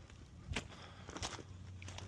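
A hiker's footsteps: two steps about two-thirds of a second apart.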